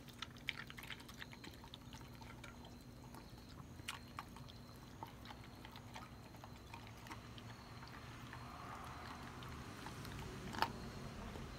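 Beagle eating dry kibble from a stainless steel bowl: irregular crunching and short clicks of kibble and muzzle against the metal bowl. One sharper click comes about ten and a half seconds in.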